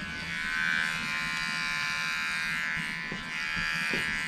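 Cheap electric dog-grooming clipper buzzing steadily as it is run over a shaved scalp. The buzz grows louder and softer a couple of times as the blade is moved against the head.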